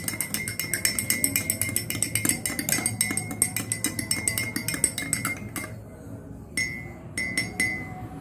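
Metal spoon stirring a warm lime-juice, honey and salt drink in a drinking glass, clinking quickly and evenly against the sides with a ringing note. The stirring pauses briefly about six seconds in, then resumes.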